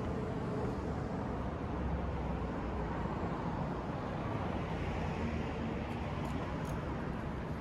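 City street ambience: a steady low rumble of road traffic, swelling slightly partway through, with two faint ticks about six seconds in.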